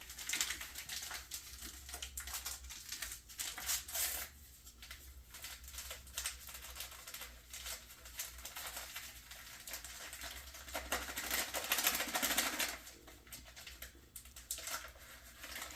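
Crinkling and rustling of the bag of an instant vanilla pudding mix being handled and opened, with scattered small clicks and a louder, longer rustle about eleven seconds in.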